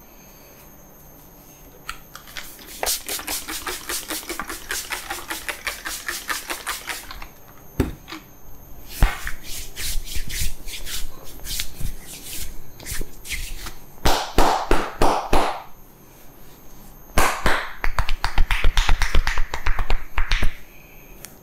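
A barber's hands tapping and slapping rapidly on a person's head and shoulders in a massage, in several quick runs of strokes with short pauses between them. The last run, near the end, is the loudest, each stroke landing with a dull thud.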